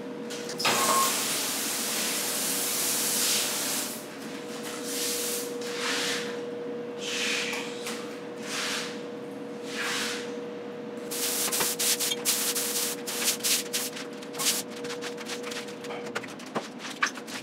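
Water spraying from a hand-held spray nozzle on a hose onto a tiled floor. There is one long spray first, then separate squirts, then a rapid run of short squirts near the end, over a steady hum that stops shortly before the end.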